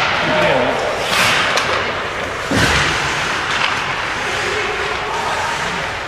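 Ice hockey play in a rink: a few sharp knocks of stick, puck and boards over steady rink noise, the heaviest about two and a half seconds in.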